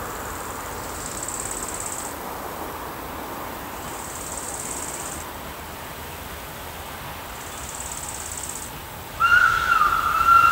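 Insects buzzing high-pitched in three spells of a second or so each, then about nine seconds in the steam whistle of the 1952 VR Tk3 steam locomotive 1168 starts one long, steady blast as it approaches, the loudest sound.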